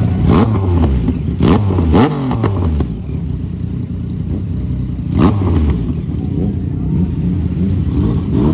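Motorcycle engine running at idle and being blipped on the throttle: three quick revs in the first two seconds or so, each rising and falling in pitch, and another about five seconds in.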